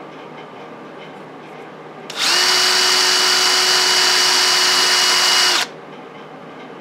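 Drill press spinning a small abrasive bit to engine-turn swirls into an aluminum dash panel. About two seconds in, a much louder hissing whine at a steady pitch starts sharply, runs for about three seconds, then cuts off.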